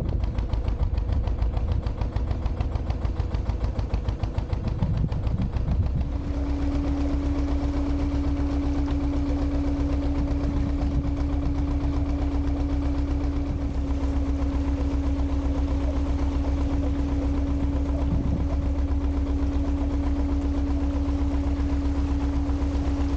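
Narrowboat's diesel engine running at a steady, even chug while the boat cruises. About six seconds in, a steady hum joins the engine beat.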